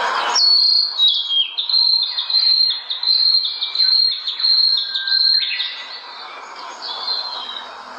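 Small songbirds chirping and twittering: a short burst of noise right at the start, then a fast run of high chirps and stepping notes for about five seconds, easing to softer, sparser calls.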